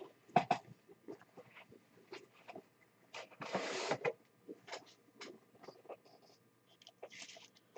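Faint handling noises of a trading card and a plastic card holder: scattered light clicks and taps, with a longer rustle about three and a half seconds in.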